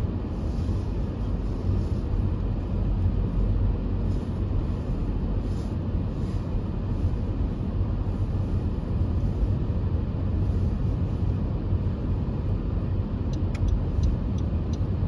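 Car driving at low speed, heard from inside the cabin: a steady low rumble of engine and tyre noise. A few light clicks come near the end.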